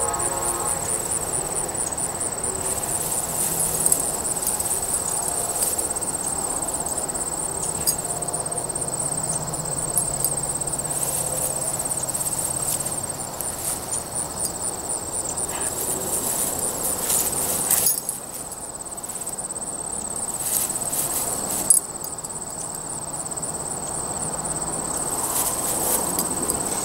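Grass insects trilling, a steady high pulsing drone that thins out about halfway through. A few brief rustles and snaps of a dog pushing through tall grass.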